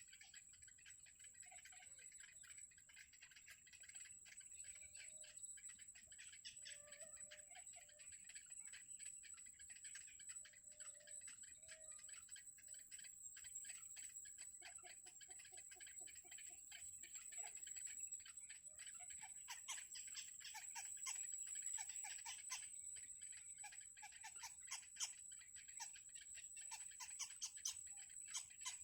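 Faint outdoor nature ambience: rapid high-pitched ticking and chirping over a steady thin high tone. It grows denser and a little louder after about twenty seconds, with a few short low calls earlier on.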